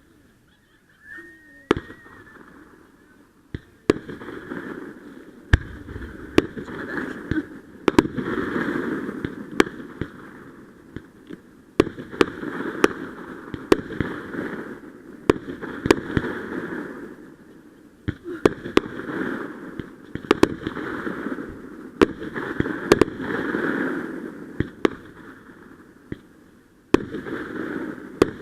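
Fireworks going off: sharp bangs, a few at first and then many in quick succession, over a rushing hiss that swells and fades between them.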